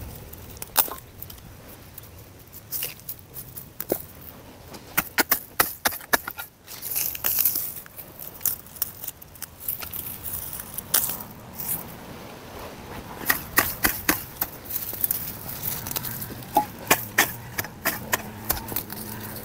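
Hand hoe chopping and scraping into dry sandy soil to cut out weed grass by the roots: irregular sharp strikes, some in quick clusters, with a brief rustle of grass about seven seconds in.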